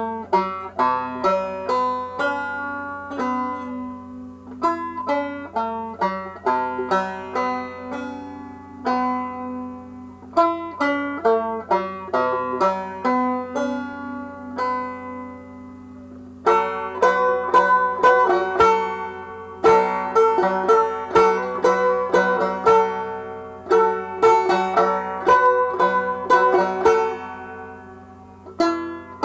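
Solo banjo playing an instrumental break of an old-time blues tune, plucked notes ringing out one after another. A little past halfway the picking turns louder and busier.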